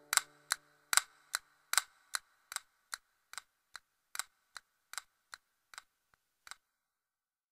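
Clock ticking steadily, about two and a half ticks a second, growing fainter and stopping about six and a half seconds in. The tail of a piano chord dies away in the first second.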